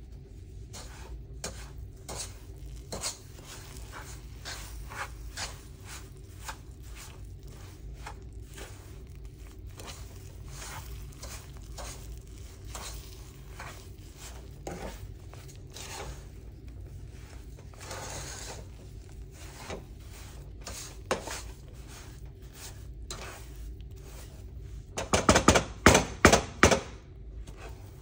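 Wooden spoon stirring and scraping a thick mix of butter and sugar against the bottom of a nonstick saucepan, in many short strokes. Near the end comes a quick run of much louder knocks.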